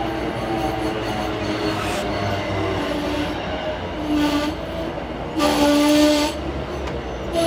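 Train running through the station with its horn sounding: a short blast about four seconds in, then a longer, louder blast about a second later, over the steady rumble of the train.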